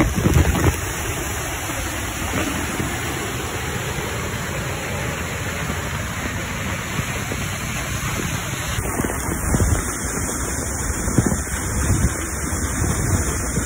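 Waterfall pouring off a dam, heard from right under the cascade: a steady, dense rush of falling water, with heavier splashes hitting close to the microphone in the first second and again a few times later on.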